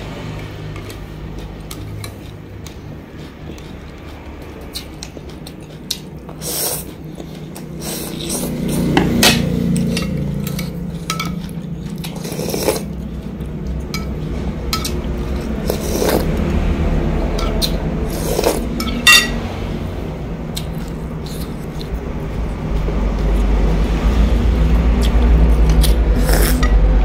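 Mukbang eating sounds: a metal spoon and chopsticks clinking and scraping against a ceramic bowl of noodle soup, in scattered sharp clicks.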